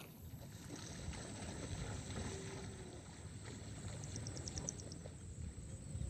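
Low steady outdoor rumble of wind and open-air ambience by the pond, with a short high trill of about seven quick pips about four seconds in.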